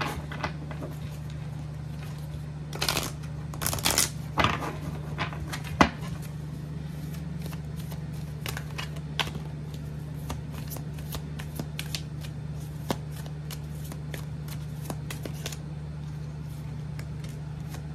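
A deck of oracle cards shuffled by hand, the cards sliding and clicking against each other, with a louder run of card slaps and riffling about three to six seconds in, then lighter, quicker card ticks. A steady low hum underneath.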